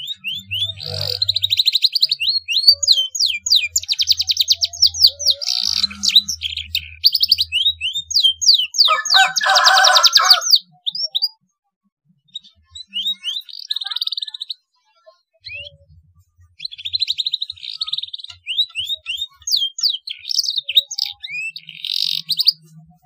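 Young domestic canary singing fast trills and quick down-slurred whistles, its song filled with phrases copied from the black-throated canary. About nine seconds in comes a harsher, buzzing trill, and after a pause of several seconds the singing starts again.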